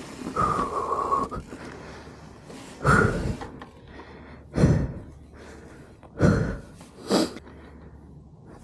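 Mountain bike rider on a jump trail breathing out hard in four short loud bursts. A steady whine from the bike comes just before the first of them.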